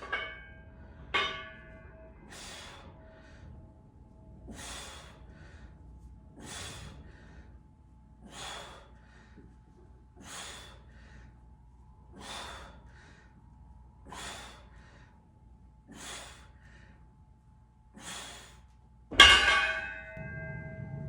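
A person breathing out hard in a steady rhythm, about one breath every two seconds, as when doing exercise repetitions. Ringing metal clanks of gym equipment come at the start and about a second in, and the loudest clank comes near the end.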